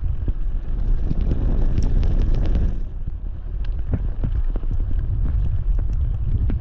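Wind buffeting the microphone of a camera riding on a moving bicycle, a heavy steady rumble with scattered clicks and rattles. About a second in a louder rushing hiss swells up and cuts off suddenly near the three-second mark.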